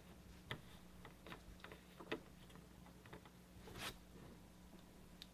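Near silence with faint, scattered clicks of LEGO plastic as a minifigure is turned by hand on its base, and a brief soft rustle a little before four seconds in; a faint steady hum underneath.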